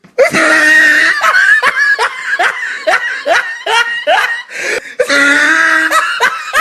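Loud, high-pitched laughter: a long held cry breaking into a run of short ha-ha bursts, about three a second, then another long held cry near the end.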